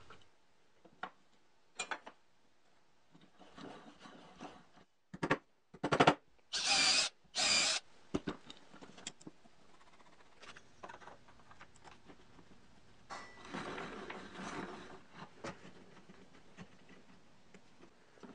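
Wood screws being driven by hand with a screwdriver into plywood parts, with scattered clicks and knocks as the wooden pieces are handled. About six and a half seconds in come two short, loud bursts of a power tool, the loudest sounds here.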